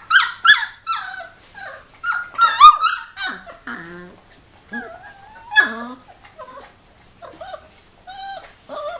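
Three-week-old Giant Schnauzer puppies making tiny barks and high-pitched yelps in quick succession, loudest in the first three seconds. A few lower, drawn-out calls come in the middle as they tussle.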